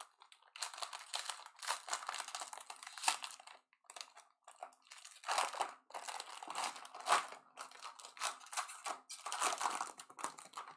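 Foil wrapper of a 2020 Bowman Draft jumbo baseball card pack being torn open and crinkled by hand, in several bursts of crackling with short pauses between.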